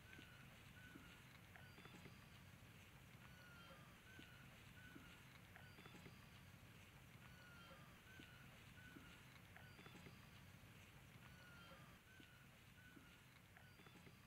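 Near silence: faint open-air ambience with a small bird chirping over and over in short, curving calls, and a few faint knocks.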